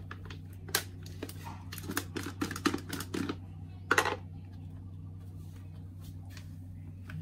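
Yellow screw lid being twisted off a plastic jar and the jar handled: a run of sharp plastic clicks and rattles over the first four seconds, the loudest about four seconds in, over a steady low hum.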